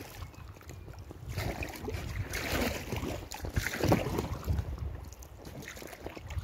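Kayak paddle strokes swishing and splashing in the river beside an inflatable kayak, a few swells of water noise a second or so apart, over a low rumble of wind on the microphone.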